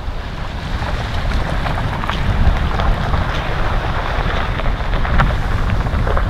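Jeep driving slowly along a gravel track and through a muddy puddle: a low engine rumble with scattered clicks and crackles from the tyres on stones and water, and wind buffeting the microphone.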